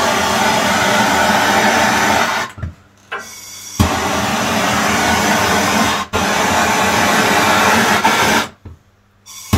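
Heat gun blowing hot air to shrink heat-shrink sleeving over a crimped cable joint, a steady motor-and-fan noise run in bursts. It cuts out about two and a half seconds in, starts again with a click about a second later, stops briefly around six seconds, and cuts out again near the end.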